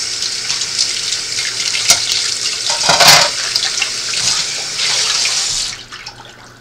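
Kitchen faucet running into a stainless steel sink and saucepan while an apple is rinsed and rubbed by hand under the stream, splashing loudest about halfway through. The tap is shut off near the end.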